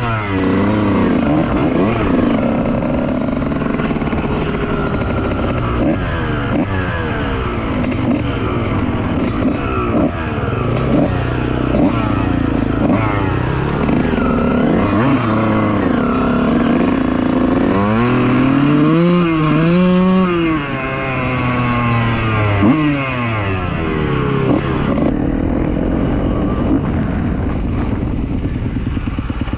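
Two-stroke dirt bike engine revving up and down under hard riding, its pitch climbing and dropping as the throttle is worked. About two-thirds of the way through it revs up and down in a quick run.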